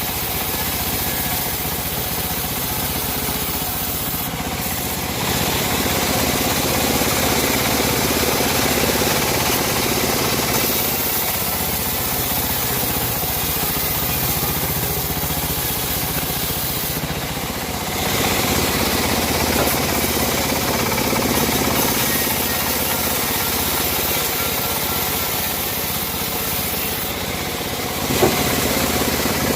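Homemade bandsaw sawmill running steadily while sawing teak, a continuous machine sound that grows louder about 5 seconds in and again about 18 seconds in, easing between, with one short knock just after 28 seconds.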